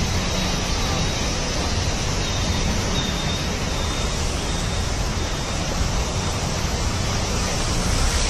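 Steady rushing and washing of floodwater churned up by a vehicle driving through a flooded street, over a low, even rumble of engine and wind.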